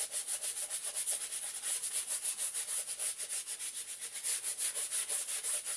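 Fast back-and-forth scrubbing of a dirty canvas Converse All Star sneaker with Sapólio cleanser, an even scratchy rhythm of about eight strokes a second that stops abruptly near the end.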